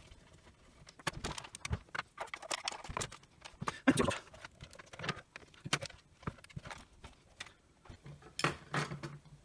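Plastic housing of a Milwaukee M18 six-bay battery charger clicking and knocking as it is handled and tipped over on a rubber work mat while its bottom is being taken off, irregular light knocks with a louder clatter about four seconds in.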